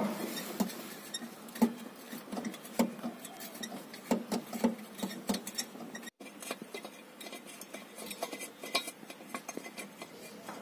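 Scattered light metallic clinks and taps, irregular and unevenly loud, as of metal tools and parts being handled during engine work; the sound drops out for an instant about six seconds in.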